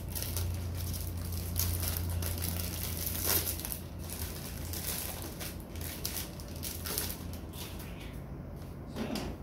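Clear plastic packaging crinkling and rustling as it is handled and pulled off an album, a run of irregular crackles.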